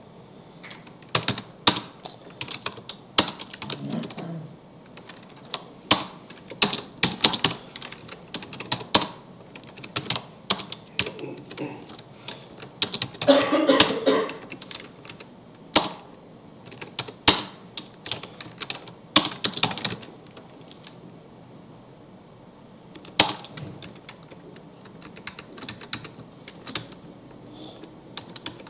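Typing on a computer keyboard: irregular keystroke clicks in quick runs with short pauses, as code is entered. A brief louder noise about fourteen seconds in.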